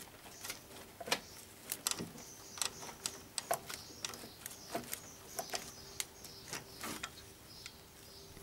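Light, irregular clicks and knocks, about one or two a second, from engine-bay parts being handled as the power steering pump is worked aside, over a faint steady hum.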